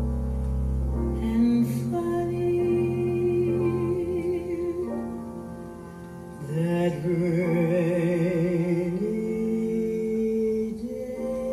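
A recorded jazz ballad played over hi-fi loudspeakers in a room. A woman's voice holds long notes with a wide vibrato over piano accompaniment, with a brief quieter lull about six seconds in.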